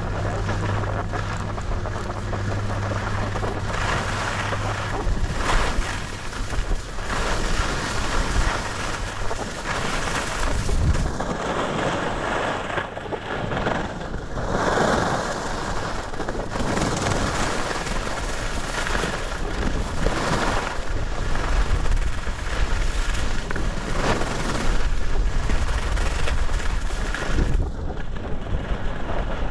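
Wind rushing and buffeting over the microphone on a ski run, a loud, uneven rushing noise that swells and drops.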